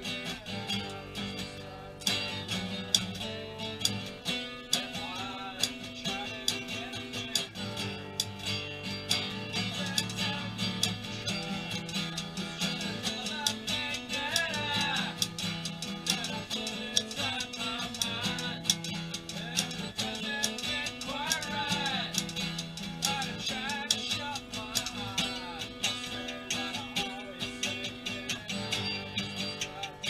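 Song on strummed acoustic guitar with typewriter keys clacking along as percussion, and a voice singing at times.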